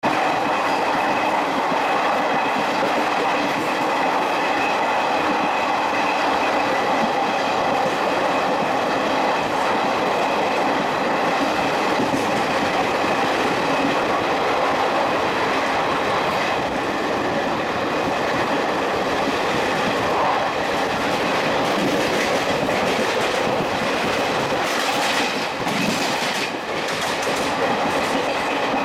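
Passenger coaches of an express train running at high speed, heard from on board: a steady rumble and clatter of wheels on the rails, with a few sharper clatters near the end.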